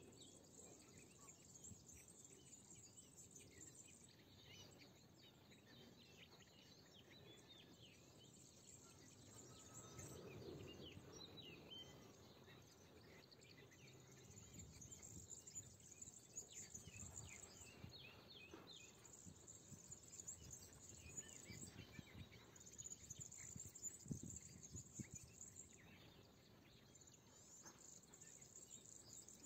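Faint spring chorus of many small songbirds chirping in Mediterranean scrub, with a high thin buzz that comes and goes in stretches of a few seconds. A soft low thump late on is the loudest moment.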